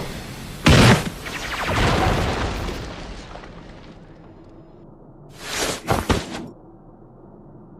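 Anime sound effects: a sudden loud boom, a rumbling swell that fades away, then a brief rushing whoosh with two sharp hits about six seconds in.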